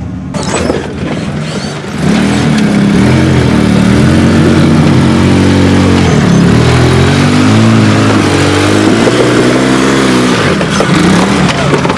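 An off-road rock crawler's engine revs up and down in repeated surges under load as the rig crawls its tyres over boulders. It gets much louder about two seconds in.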